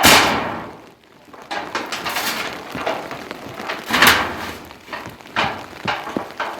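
Cooking in a pan over a fire: a loud burst of sizzling right at the start that fades over about a second, then several scrapes and clatters of utensils and pots.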